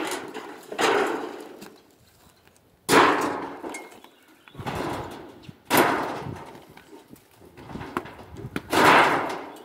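Old tin roofing and wood being torn off a shed: a series of about six loud bangs and crashes, each ringing out for a second or so, with the loudest about three, six and nine seconds in.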